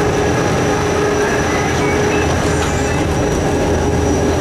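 Corcovado rack railway car running on its track, heard from inside the car: the electric train's drive and running gear make a steady running noise with a held mid-pitched hum and a faint high whine.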